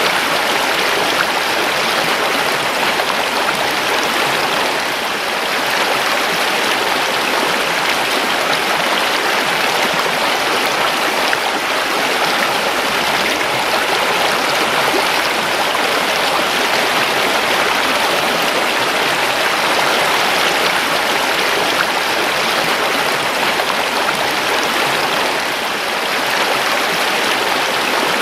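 A creek running, water rushing and babbling over stones, loud and steady.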